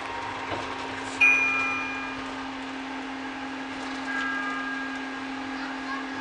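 Ride-on miniature electric train running with a steady low hum, and a single sharp bell-like ding about a second in that rings on for about a second.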